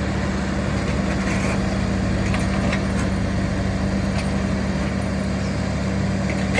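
Heavy construction machine's diesel engine running steadily, a continuous drone with a constant pitch.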